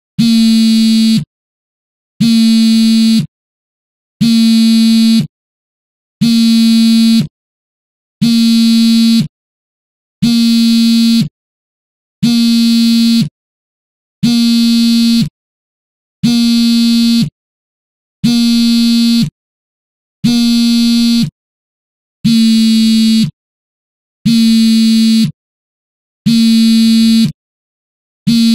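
Mobile phone vibrating on a table: a loud buzzing rattle in bursts of about a second, repeating every two seconds with silent gaps between, the vibrate pattern of an incoming call.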